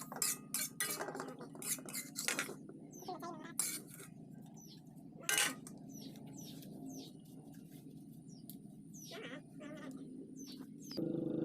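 Kitchen utensils clinking against dishes: a run of sharp clinks over the first few seconds and one more about five seconds in. Small birds chirp throughout.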